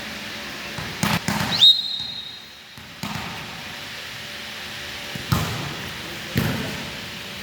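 Volleyball being struck during play: three quick hits about a second in, then two single hits around five and six seconds in. A brief high-pitched tone rises and holds for about a second right after the first run of hits.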